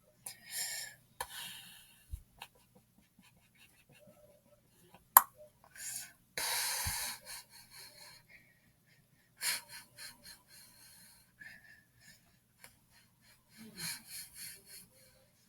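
Breath noises close to the microphone, in short hissy bursts, one lasting about a second, with scattered small clicks and one loud sharp click about five seconds in.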